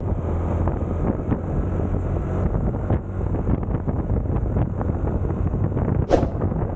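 Wind buffeting the microphone of a camera riding on a Yamaha Aerox 155 scooter, over a steady low rumble of the engine and road. A short, sharp sound cuts through about six seconds in.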